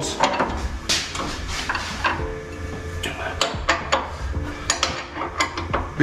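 Irregular metallic clinks and clicks of a hand wrench working the bolts of a VW T4 front door's new hinges, tightening them to hold the freshly hung door.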